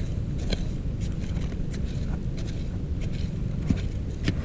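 Scattered light clicks and scrapes of digging and handling in soil, over a steady low rumble.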